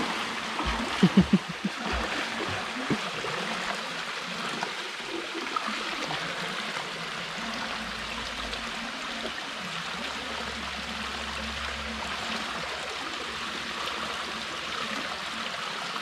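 Creek water running steadily, a continuous rush. A few brief loud thumps come about a second in.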